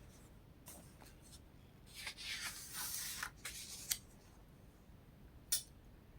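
Pages of a book being turned: a soft paper rustle and swish lasting about two seconds, with a few light taps before it and a short sharp tick near the end.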